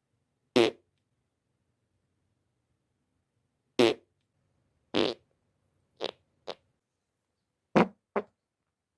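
Seven short fart sounds with silence between them, the loudest about a second in, near four seconds and near eight seconds, the last ones coming in quick pairs.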